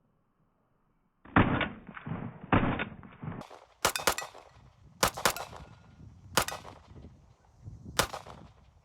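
A string of 9mm pistol shots from a CZ P01 Omega, fired at an irregular pace of roughly one every second or so after about a second of quiet, each a sharp crack with a short ringing tail.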